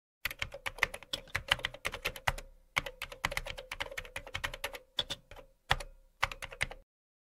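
Rapid keystrokes on a computer keyboard, typing in quick runs with a couple of short pauses, then stopping abruptly about seven seconds in.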